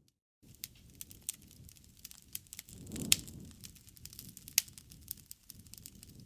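Wood fire (bonfire) crackling, with scattered sharp pops of burning wood; the two loudest snaps come about three and four and a half seconds in, over a low rush of flame that swells around three seconds. The sound drops out completely for a split second at the very start.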